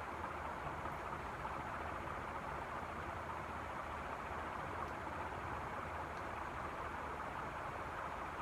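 NuTone Proline 1 56-inch industrial ceiling fan running steadily on high speed: an even rush of air from the blades over a faint low motor hum.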